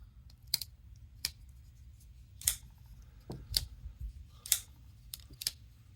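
Vosteed Raccoon folding knife flicked open and closed by hand: sharp metallic clicks of the blade snapping to its stop and the crossbar lock engaging and releasing, about eight clicks at uneven intervals.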